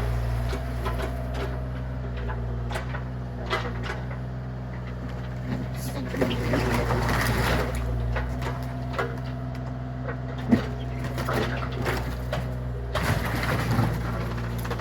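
Excavator engine running steadily, with scattered knocks and clatters.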